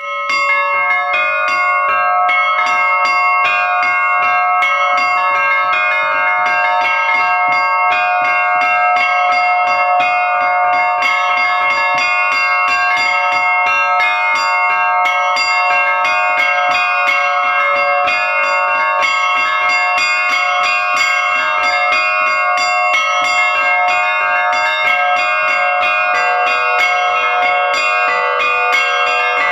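Russian-style bell ringing (zvon) on a set of small bells, played as a simple practice pattern in three-beat (3/4) time. Many strikes come in quick succession, their tones ringing on and overlapping.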